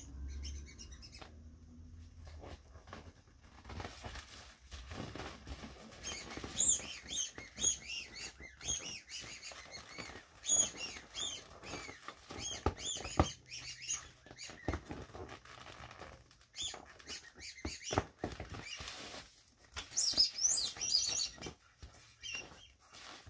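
Inflatable vinyl bunnies squeaking as they are rubbed and squeezed by hand: a long run of short high squeaks mixed with the rubbing and bumping of vinyl, quieter for a few seconds before a last loud spell near the end.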